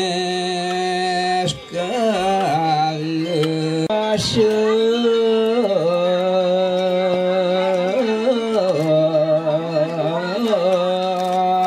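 A solo voice singing a slow, ornamented chant in long held notes that waver and bend, pausing for breath twice near the start. A steady high ringing tone sounds above it.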